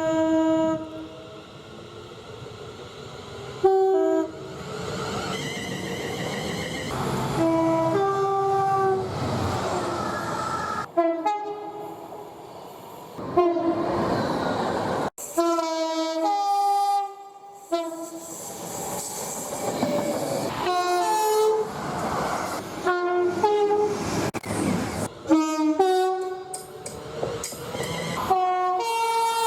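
Two-tone horns of British trains sounding one after another: short high and low notes, one clip cut hard to the next. Under some of the blasts runs the rumble of a passing train.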